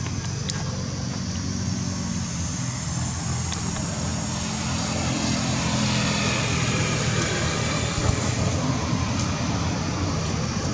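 Steady engine drone with a low hum, swelling slightly and then easing off toward the end.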